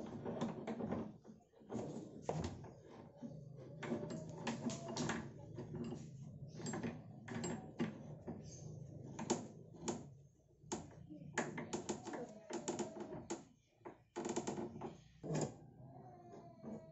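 Cast-iron pipe clamp fittings clicking and clanking against a steel pipe as they are slid along and fitted by hand: many sharp metal clicks at an irregular pace.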